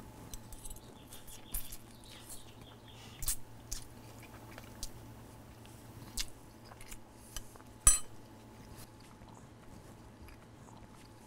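A man chewing a mouthful of spaghetti with chili, with small wet mouth clicks and smacks. About eight seconds in there is one sharp, ringing clink from a metal fork against the plate.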